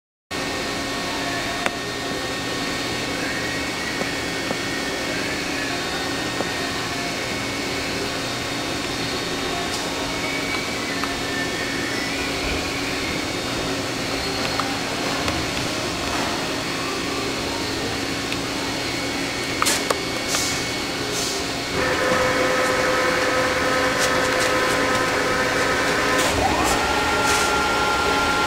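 Rottler F90Y CNC machining centre running, a steady hum with several steady tones and a few clicks about two-thirds through. About three-quarters through it gets louder, and near the end a whine rises in pitch and then holds steady.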